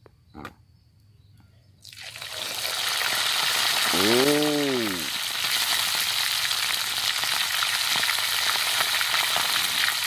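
Hot cooking oil in a wok bursts into loud sizzling about two seconds in, as pieces of pre-braised, turmeric-spiced green pigeon go in to deep-fry, and the frying keeps up steadily. About halfway, a short low voice sound rises and falls in pitch over the sizzle.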